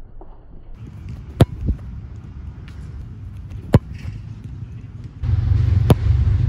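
A soccer ball struck hard with the instep, three or four sharp thumps about two seconds apart. A steady low rumble sets in about five seconds in.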